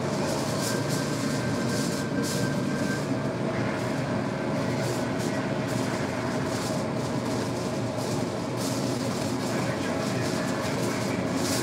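Aluminium foil crinkling in short bursts as it is folded and wrapped around a large baked pastry, over a steady mechanical drone.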